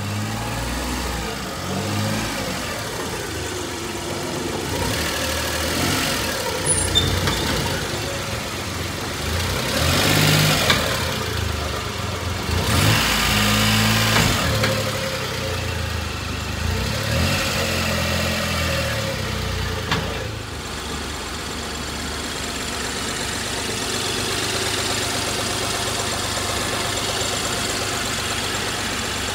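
1993 Daihatsu Hijet mini truck's engine running, its sound rising and falling between about 8 and 20 seconds in, then settling to a steady idle.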